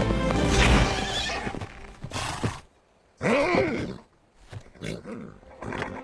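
A horse whinnies loudly about three seconds in, its pitch rising and falling, followed by several shorter, quieter horse calls. Music fades out in the first second or so, and a short burst of noise comes just after two seconds.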